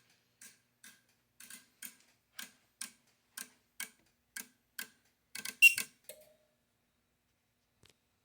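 A run of light, sharp clicks, about two a second, then a louder quick cluster of clicks about five and a half seconds in, after which they stop.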